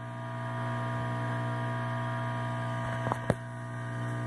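Air pump of a Yaxun 702 hot-air rework station running with a loud, steady hum, with two light clicks about three seconds in. It is very noisy yet gives very little air flow.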